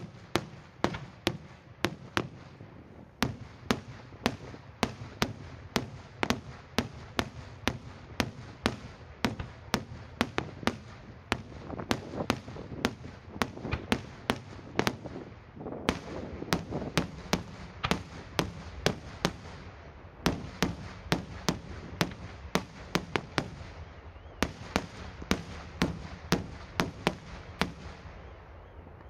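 Daytime aerial fireworks: shells bursting overhead in a rapid series of sharp bangs, about two a second, over a continuous low rumble of echoing reports. The barrage stops near the end.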